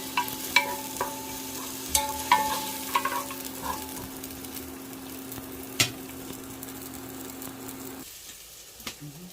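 Onion and garlic sizzling in hot oil in a pan while a utensil stirs them, striking the pan with ringing clinks several times in the first few seconds and once more later. The sizzle cuts off abruptly about eight seconds in.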